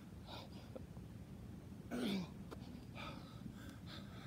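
A man breathing hard and gasping after sprints and burpees, in separate heavy breaths, with a loud voiced exhale that falls in pitch about two seconds in.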